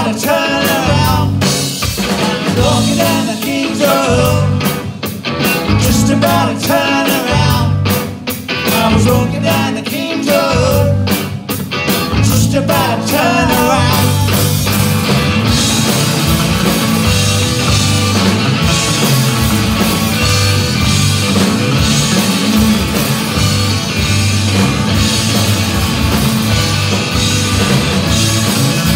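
Live rock band playing electric guitars, bass guitar and drum kit, with singing over the first half. From about halfway the band plays on without vocals.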